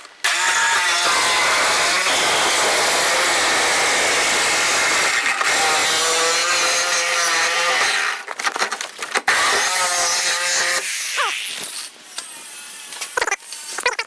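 Chainsaw cutting through the sheet-steel roof pillar of a car, run at full throttle from just after the start, with a wavering engine pitch. From about eight seconds in it comes on and off the throttle in short bursts.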